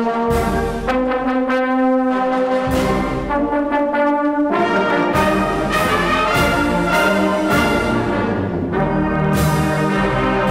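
Brass band music: held chords that change every second or two.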